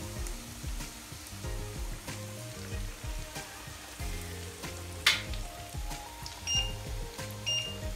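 Breaded chicken schnitzel sizzling as it shallow-fries in oil in a pan, with background music playing. A single sharp knock about five seconds in, then two short high beeps from the induction hob's touch controls near the end.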